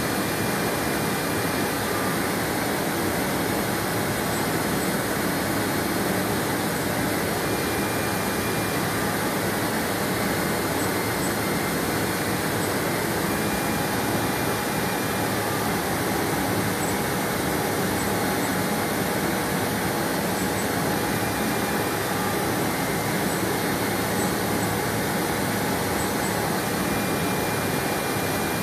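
CNC router running steadily as its spindle and bit work along an aluminium composite (Alupanel) sheet on a vacuum hold-down table, with dust extraction drawing through the hose: an even, unchanging machine noise with a faint steady hum and whine.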